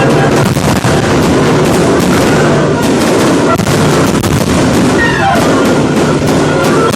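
Fireworks exploding in a rapid, dense run of bangs and crackles.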